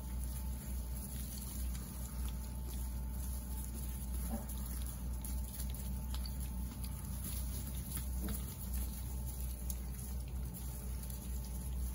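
Mini piglets scuffling and shoving on a straw-bedded floor: a light patter of small hooves and rustling straw, over a steady low hum.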